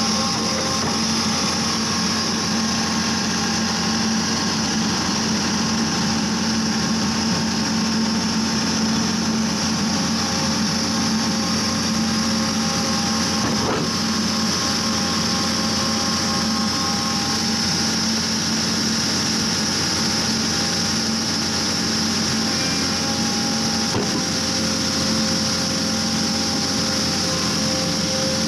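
80x100 horizontal directional drill rig running steadily: engine and hydraulic drive with a constant hum and a steady high hiss while the drill pipe turns under a water spray, with a couple of faint clicks.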